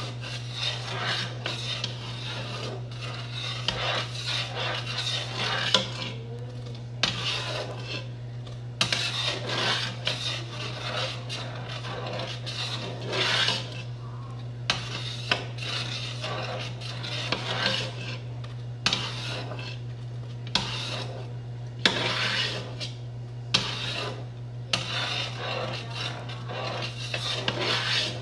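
A metal spoon stirring and scraping a thickening coconut-milk and corn pudding (maja blanca) in a large pot, in repeated strokes about a second apart, with a few sharp clinks of the spoon against the pot.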